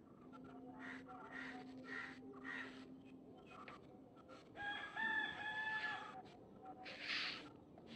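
A rooster crowing once: a single drawn-out call about halfway through. Short rasping sounds come before it and again just after.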